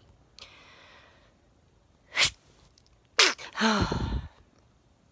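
A woman sneezing once, loudly, about three seconds in: a sudden burst followed by a falling voiced cry. A short, sharp intake of breath comes about a second before it.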